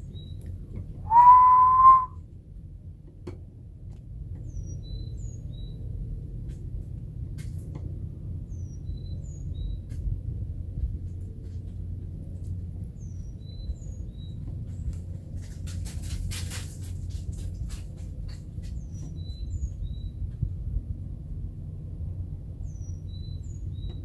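A person's single short whistle about a second in, one clear note rising slightly. Faint high bird chirps repeat every couple of seconds over a low steady rumble.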